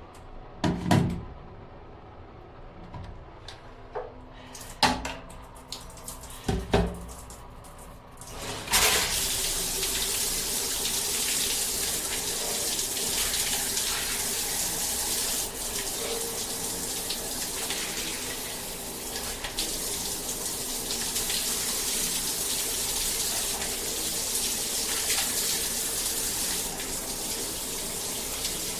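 A few sharp knocks and clacks of handling, then, about nine seconds in, water comes on suddenly: a handheld shower head spraying in a steady, even hiss into a bathtub.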